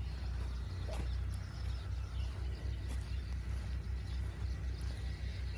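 Open-field ambience: a steady low rumble with faint bird chirps and a couple of light clicks.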